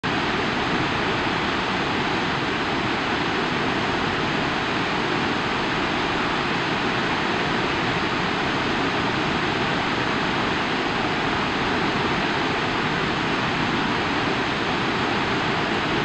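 San Rafael Falls, a 480-foot waterfall at full flow, heard from above its gorge: a steady, even rush of falling water.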